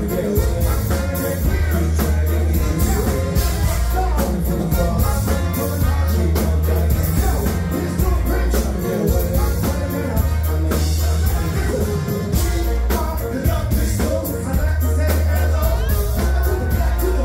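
Live band playing, with singing over heavy bass and a steady drum beat.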